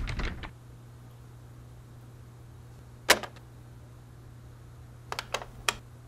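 Knocking on a door: a heavy thud at the start and a single sharp rap about three seconds in. Near the end come four quick metallic clicks from a door's deadbolt lock being worked.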